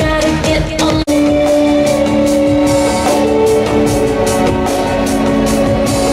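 Background music with guitar and drums, with a momentary dropout about a second in.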